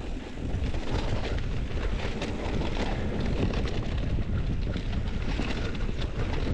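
Mountain bike ridden at speed on a dirt trail: wind buffets the microphone over the steady hiss of tyres on dirt, with frequent short clicks and rattles from the bike over bumps.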